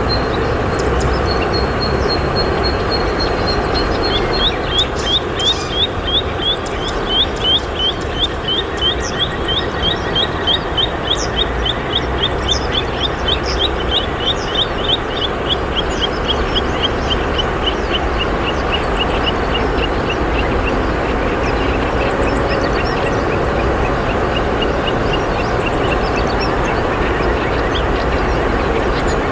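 Steady rush of flowing river water. A few seconds in, a bird starts a long, rapid trill of short high notes that slowly falls in pitch and fades out near the end.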